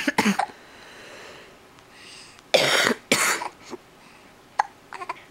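Hiccups with cough-like bursts: a couple of sharp ones at the start, two louder, longer ones about two and a half to three seconds in, then a few small quick ones near the end, with breathy sounds between.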